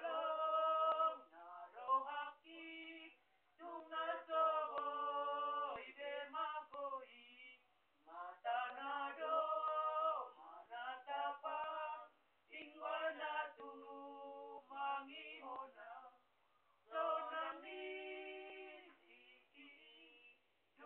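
A small group of voices singing a Batak Toba church hymn unaccompanied. The lines run about four seconds each, with short breaks between them.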